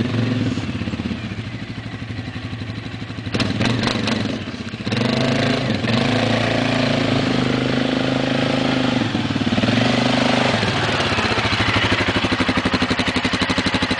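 2008 Suzuki King Quad 750AXi's single-cylinder four-stroke engine running through a Yoshimura aftermarket exhaust as the ATV is ridden. The engine note rises about five seconds in and holds higher. Near the end it is heard close up at lower revs as a steady, rapid, even pulse.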